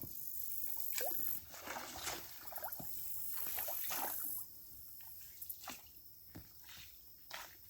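Paddles dipping and pulling through pond water beside an inflatable raft, with irregular splashes and trickling drips between strokes.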